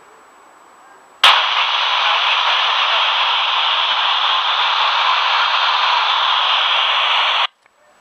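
Handheld FM radio receiver's speaker hissing with loud, even static: it switches on with a click about a second in and cuts off abruptly shortly before the end. It is the noise on the International Space Station's downlink channel between the astronaut's replies.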